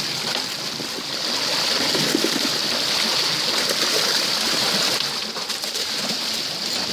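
Sea water rushing and splashing steadily along the side of a moving boat's hull while a hooked albacore tuna thrashes at the surface beside it.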